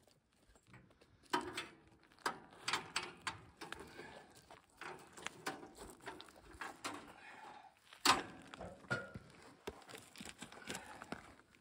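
Steel band-saw blade of a Woodland Mills portable sawmill being worked by hand around its wheels: irregular clanks, knocks and rattles of the blade against the wheels and guard, the loudest knock about eight seconds in.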